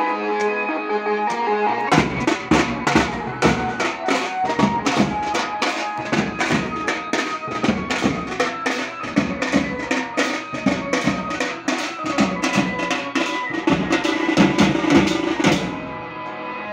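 A banjo party band playing: a stringed banjo melody alone at first, then about two seconds in drums join with a fast, steady beat. The drums stop shortly before the end while the melody carries on.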